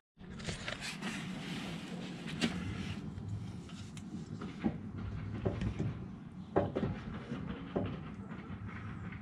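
A dry sump oil pump being handled against an engine block, giving several light knocks and clicks of metal on metal, over a steady low hum.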